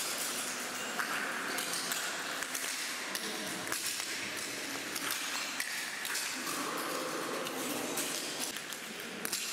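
Several people's footsteps crunching over a floor covered in brittle white shards, a continuous dense clinking and crackling with occasional brief ringing pings as pieces knock together.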